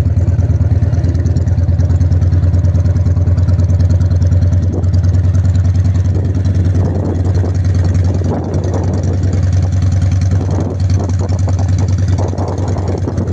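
An engine running steadily at low revs, close and loud, with a deep even hum. From about halfway through, irregular knocks and noise sit over it.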